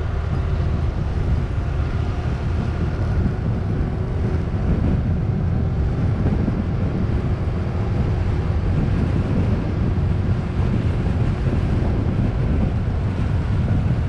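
Motorbike ride heard from a helmet-mounted camera: a steady rush of wind buffeting the microphone, with the bike's engine running underneath.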